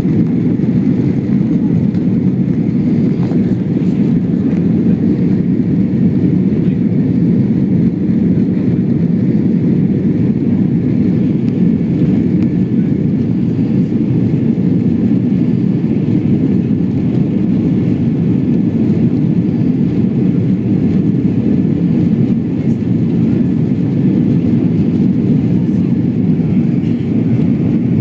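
Boeing 747's four jet engines heard steadily from inside the cabin during takeoff, a deep, even rumble with a faint high whine above it.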